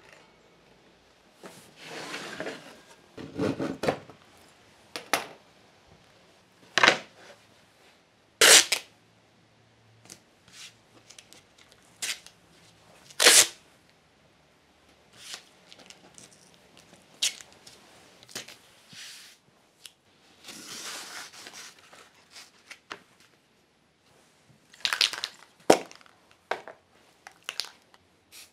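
Blue painter's tape pulled off the roll in rasping stretches and torn off in short, sharp rips as strips are laid over plywood, masking it for spray painting.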